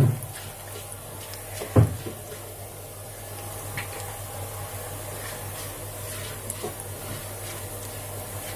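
Slivered almonds frying gently in desi ghee in a nonstick kadhai on low heat, with a faint steady sizzle. A silicone spatula stirring them knocks sharply against the pan twice near the start, then scrapes with a few light clicks.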